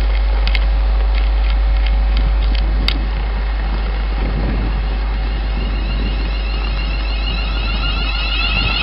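Inside a Class 380 electric multiple unit standing at the platform: a steady low hum of the train's onboard equipment, with a few sharp clicks in the first seconds. A repeating warbling tone starts near the end.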